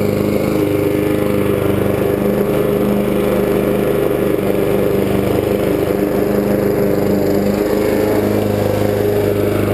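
Honda walk-behind lawn mower's single-cylinder four-stroke engine running at a steady speed while the mower is pushed across the lawn, cutting grass.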